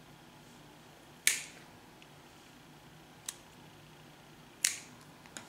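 Scissors snipping through thin cardboard battery-pack backing card: a few sharp snips a second or more apart, each dying away quickly, with a lighter click between.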